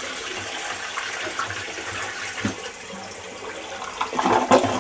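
Toilet flushing: a steady rush of water into and through the bowl, growing louder for about a second near the end before it falls away.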